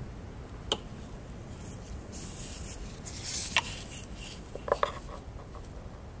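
Gloved hands handling a small plastic camshaft position sensor and its 3-pin wiring plug: light plastic clicks and taps with a soft rubbing of glove on plastic. There is one click about a second in, a rub and click past the halfway point, and a quick pair of clicks near the end.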